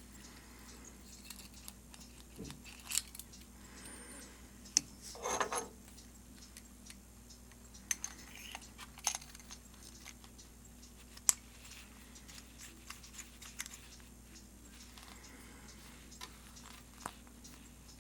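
Scattered light clicks and taps of small metal pen-kit parts being handled and fitted together, with a short rustle about five seconds in and the sharpest click about eleven seconds in, over a faint steady hum.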